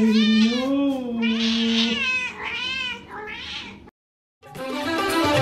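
A cat meowing in long, drawn-out calls that waver in pitch, then a few shorter meows, cutting off about four seconds in.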